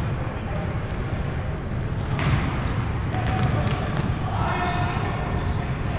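Basketball bouncing on a hardwood gym floor during play, with a sharp knock about two seconds in and sneakers squeaking in short chirps on the court.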